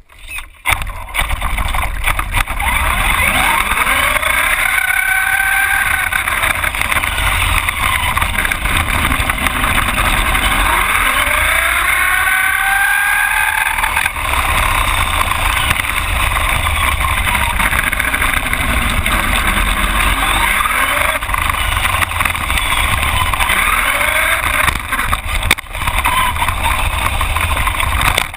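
Traxxas Slash RC truck driving, heard from a camera mounted on the truck: a motor and gear whine that rises and falls with speed over a steady low rumble from the tyres on asphalt.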